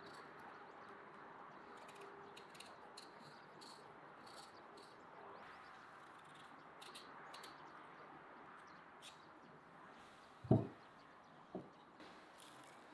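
Faint scraping of a peeling knife shaving the skin off a raw potato in short strokes. A dull thud comes about ten seconds in, with a smaller one a second later.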